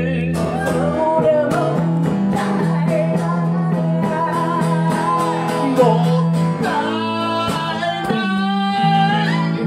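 Live band music: a man singing over electric bass and acoustic guitar, with a steady beat throughout.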